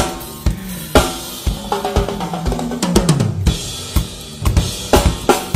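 Drum kit played live: a steady bass drum about twice a second under snare and hi-hat, with cymbal crashes near the start and a fill around the toms that falls in pitch through the middle.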